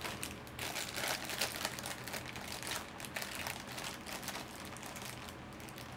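Crinkling of a Funko Mystery Minis blind-box package being opened and handled: a dense run of small crackles that thins out toward the end.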